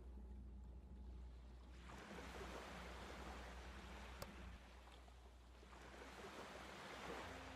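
Faint steady low hum with two slow swells of soft rushing noise, each a couple of seconds long.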